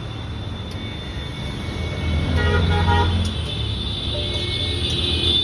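Road traffic passing close by: engine rumble that swells about two seconds in, with a short vehicle horn toot at the same time.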